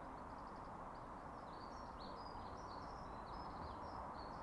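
Faint birdsong: a small bird twittering in quick runs of short high chirps over a steady hiss of outdoor background noise.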